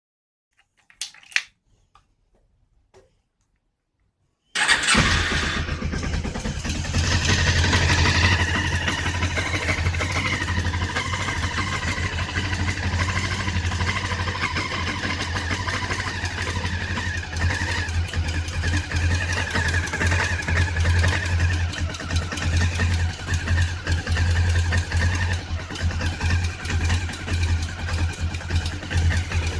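Honda CB500 motorcycle engine started from cold: a couple of clicks, then the engine catches suddenly about four and a half seconds in. It runs a little harder for a few seconds, then settles into a steady cold idle.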